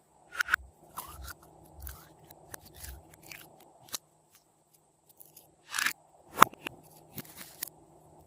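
Glossy slime being worked by hand, with irregular sharp crackles and clicks. The loudest pops come about six seconds in.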